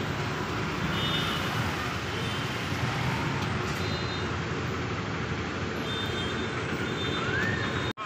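Steady road traffic: car and scooter engines and tyre noise passing by, with a few short high beeps here and there and a brief rising tone near the end.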